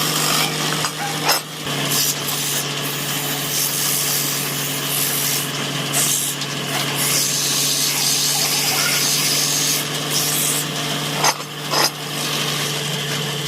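An electric power tool runs with a steady motor hum while wood is rubbed and abraded against it, the scraping noise swelling and easing. There are two brief sharp knocks near the end.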